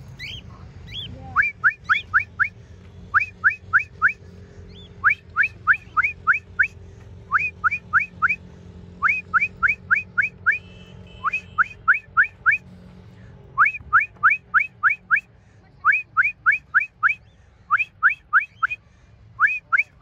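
A person whistling short rising notes in quick runs of four or five, the runs repeating every second or two, a recall whistle for free-flying cockatiels.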